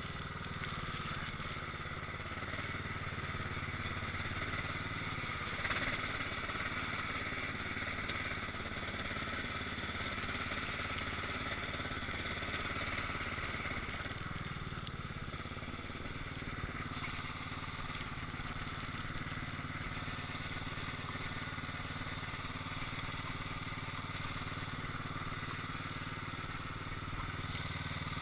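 Cub Cadet XT1 lawn tractor's engine running steadily while its front blade pushes heavy snow, with a steady hiss over it. The engine's note shifts about halfway through.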